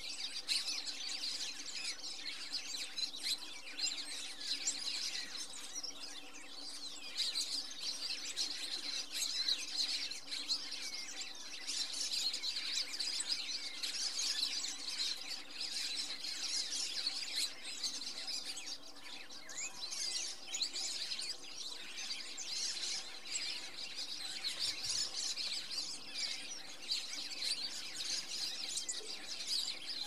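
A flock of red-cowled cardinals calling together, a dense, continuous chatter of overlapping high chirps and squeaky notes.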